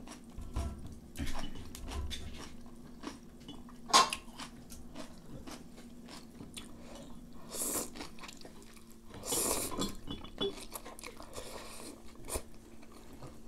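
Eating ramyeon noodles with chopsticks: wet chewing and chopsticks clicking against the pan and plates, with a sharp clack about four seconds in. There are two noisy slurps of noodles, one just before the eight-second mark and a longer one around nine and a half seconds, over a faint steady hum.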